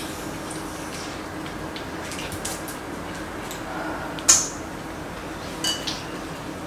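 Chopsticks clicking against bowls and dishes while eating, with scattered small taps and one sharper clink about four seconds in.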